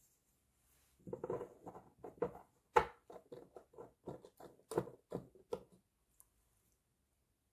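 A quick, uneven run of light taps and clicks from plastic model parts being handled, starting about a second in, with two sharper clicks among them and stopping a little before the end.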